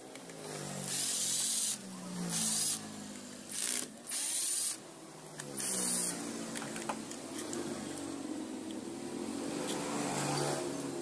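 Cordless drill-driver run in five short bursts, each a second or less, backing the screws out of an old electric hand planer's side cover.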